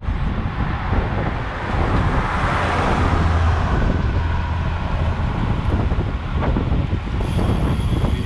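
Wind buffeting the microphone of a camera riding along on a moving road bike, with road noise underneath. A louder swell rises and falls about two to four seconds in.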